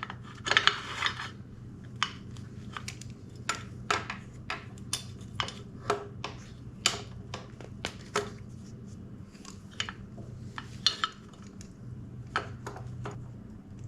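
Metal parts and hand tools clinking and clanking as they are handled on a workbench: a string of irregular, sharp clicks over a steady low hum.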